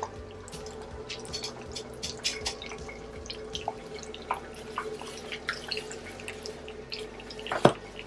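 Bombolino dough rings deep-frying in a pan of hot oil, the oil sizzling with scattered crackles and pops. A single louder, sharp crack comes near the end.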